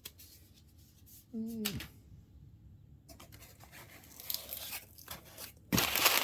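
Package being opened by hand: cardboard and packing paper rustling and crinkling, growing loud near the end as the paper is pulled out. A short hum from the person about a second and a half in.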